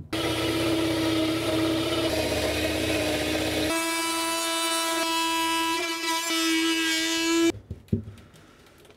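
A power tool running with a steady high-pitched whine, starting abruptly. For the first three and a half seconds it carries an extra low rumble and noise, then it runs on more cleanly and stops suddenly about seven and a half seconds in.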